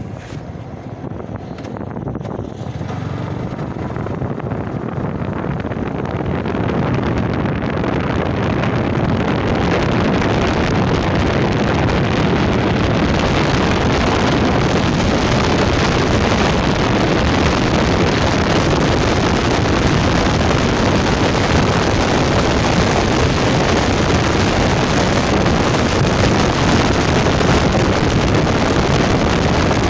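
Wind buffeting the microphone with motorcycle engine and road noise while riding, a dense rush that grows louder over the first ten seconds or so and then holds steady.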